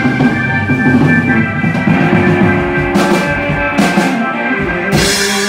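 Live rock band playing: electric guitars, drum kit and keyboard, with a cymbal crash three times in the second half.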